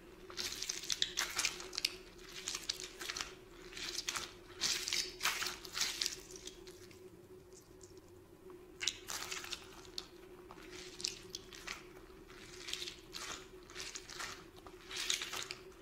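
Handling and squeezing of a squishy stress toy, giving irregular squishing and crinkling noises in uneven bursts, with a lull in the middle. A faint steady hum runs underneath.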